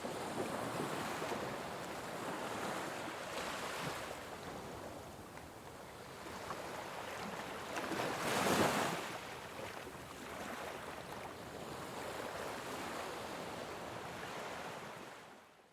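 Ocean waves washing onto a shore, with one louder wave breaking about halfway through. The sound fades out near the end.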